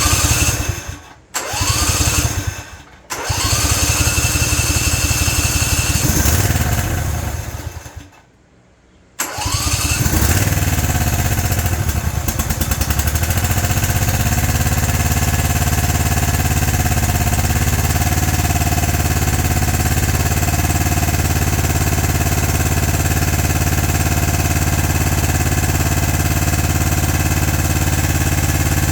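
Briggs & Stratton Intek 20 hp V-twin mower engine, freshly reassembled after an oil pan gasket repair, starting in several short bursts that cut off abruptly. About nine seconds in it starts, rises in speed, and then runs steadily.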